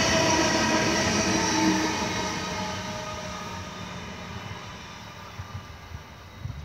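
Double-deck electric passenger train moving away along the track. Its running noise, with a steady electric whine, fades out over several seconds.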